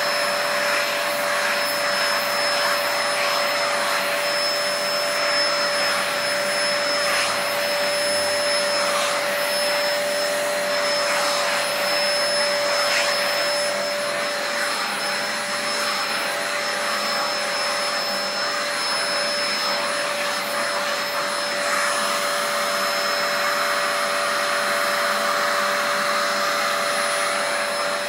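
Vacuum cleaner running steadily with its hose nozzle drawing at a cat's fur: an even rush of air over a steady motor whine. The hiss of the airflow grows stronger about three-quarters of the way through.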